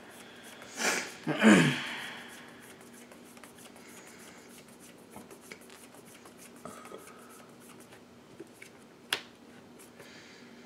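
Trading cards being handled over a play mat: faint rustles and small clicks, with one sharp snap about nine seconds in. Near the start there is a loud burst, then a short sound that falls in pitch.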